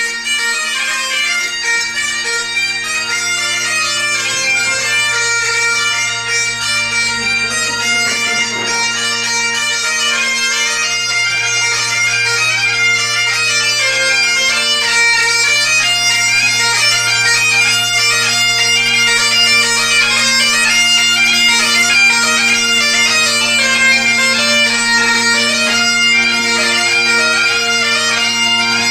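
Scottish bagpipes played by a piper, a melody on the chanter over the steady hum of the drones.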